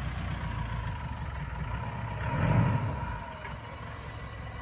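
Mitsubishi Pajero Sport's engine running under load as the SUV climbs a rough, muddy slope in four-wheel drive, a steady low rumble that swells about halfway through and then eases off.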